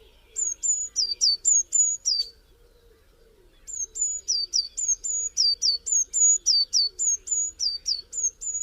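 A bird singing two phrases of rapid, high, sharp notes, about four a second, each note dropping in pitch; there is a short pause between the phrases.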